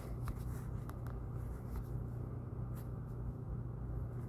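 Faint, scattered taps of a finger typing on a phone's touchscreen keyboard, over a steady low hum.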